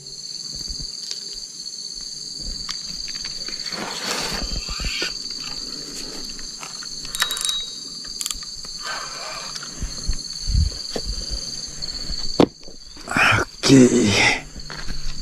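Insects keep up a steady, high-pitched drone throughout. Several irregular louder bursts of rustling and knocking break in, the loudest just before the end.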